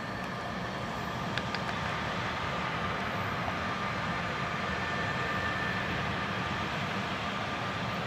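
Antonov An-124's four Progress D-18T turbofan engines running steadily on the runway: a low, even rumble with a faint steady whine above it.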